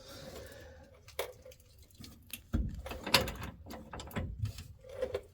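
Hand ratchet clicking in short, irregular runs, with metal clinks, as a shock or strut mounting bolt is run in and snugged up.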